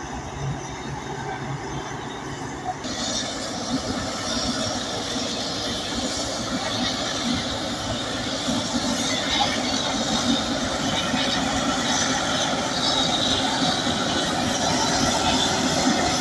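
Crawler bulldozer working: its diesel engine running under load with the squealing grind of its steel tracks, growing louder toward the end.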